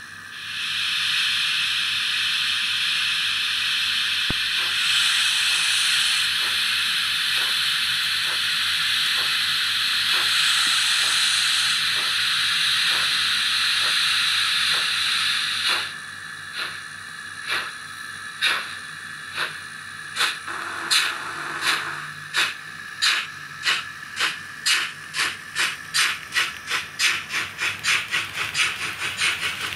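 ESU LokSound V5 sound decoder in a Roco H0 model of the DR class 18 201 steam locomotive, playing through the model's onboard speaker. A long steady steam hiss runs for about the first half. Then exhaust chuffs start, slow at first and quickening steadily as the locomotive pulls away.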